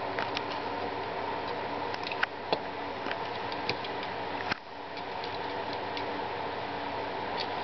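A steady fan-like hum, with a few small sharp clicks and ticks as a utility knife and hands work at leathery ball python eggs in a plastic tub. There is a brief drop in the hum about four and a half seconds in.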